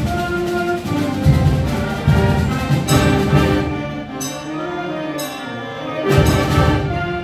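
School concert band playing, flutes and brass together. Heavy low accents come in the first half, then a quieter stretch, then a loud low entry about six seconds in.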